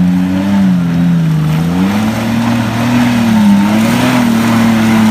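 Off-road 4x4 SUV engine revving loudly as it climbs through deep mud. Its pitch climbs about two seconds in and then wavers up and down, over a continuous rushing noise.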